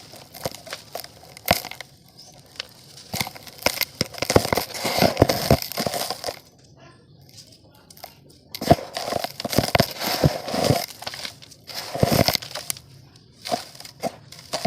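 Dry mud crumbling and crushing: crisp crackles, crunches and snaps in three main bursts, with scattered single snaps and short lulls between them.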